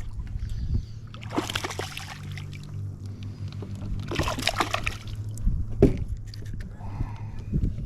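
Water splashing in two bursts a few seconds apart, the sound of a hooked largemouth bass thrashing at the surface beside a fishing kayak, followed by a few sharp knocks. A steady low hum runs underneath.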